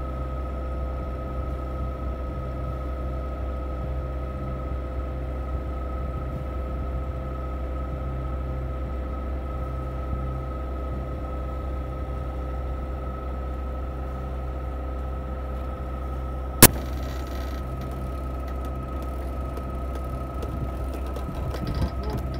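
A sailing yacht's inboard engine runs steadily under motor, a low drone with a steady whine over it. A single sharp click comes about three-quarters of the way through.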